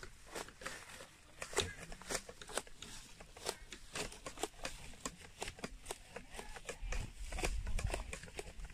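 Footsteps crunching on a path, short irregular crunches a few times a second, with a low rumble near the end.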